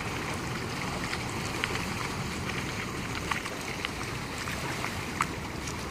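Bayliner 2655 cabin cruiser running slowly on the water, heard as a steady low rumble mixed with water noise, with a few short sharp clicks scattered through it.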